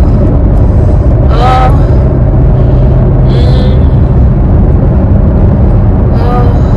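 Steady, loud low rumble of vehicle noise, broken by three short, high pitched sounds about two seconds apart.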